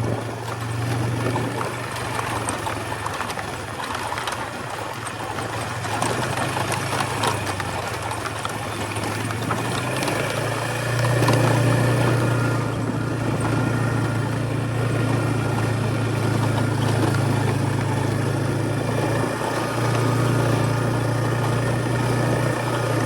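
A vehicle engine running steadily at low speed, with a constant low hum. It gets louder about eleven seconds in and dips briefly near the end.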